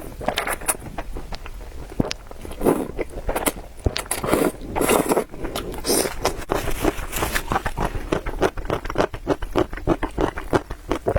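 Close-miked eating of noodles: a few noisy slurps in the first half, then steady wet chewing with many quick mouth clicks.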